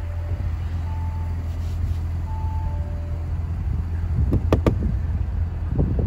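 A 2018 Audi S5 Coupe's engine idling with a steady low hum, while the car's two-note warning chime repeats several times with the driver's door open. A few sharp clicks and knocks come about four and a half seconds in and again near the end.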